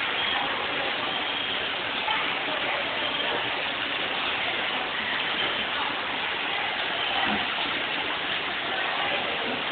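Heavy rain and running water making a steady, even rushing hiss.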